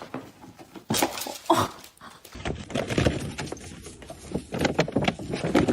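A dog making noises, with a couple of short knocks about a second in.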